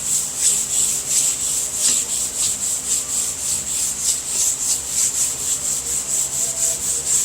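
A DuraBlock sanding block with sandpaper being worked by hand over urethane high-build primer on a car hood, in a steady rhythm of back-and-forth strokes. Each stroke makes a hiss of abrasive on primer. This is block sanding to cut down the primer and show up the low spots.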